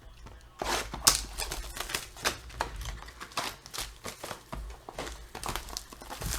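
A run of quick, irregular clicks and taps, some louder than others, with faint rustling between them.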